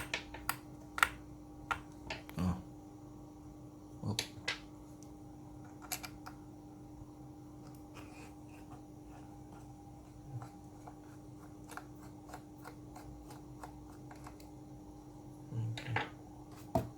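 Small irregular clicks and taps of a screwdriver working the screws out of a MacBook Pro's aluminium bottom cover, with a few louder knocks, over a faint steady hum.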